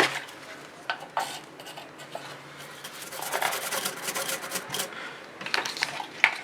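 Brush scrubbing a freshly soldered circuit board with spirit, its bristles rasping over the IC pins in irregular strokes, with a quick run of fine scrubbing strokes around the middle. The board is being cleaned so that no solder bridges short the pins.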